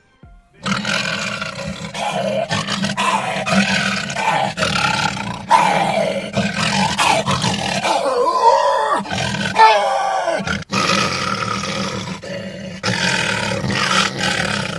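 A man roaring and growling into a metal trash can to imitate a lion's roar; the can's echo gives the roar its body. The roars run on with a few brief breaks.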